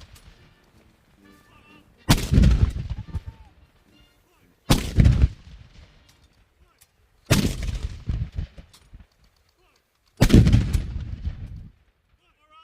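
Salute battery cannons firing a gun salute: four loud booms about every two and a half to three seconds, each trailing off in a rolling echo of about a second.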